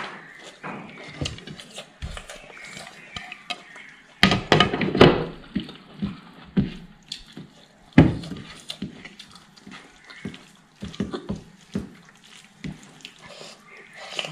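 Close-miked eating sounds: wet chewing and slurping of chicken rice porridge eaten by hand, with fingers scraping and tapping on china plates. There is a louder stretch of wet noise about four seconds in and a sharp knock on the plate at about eight seconds.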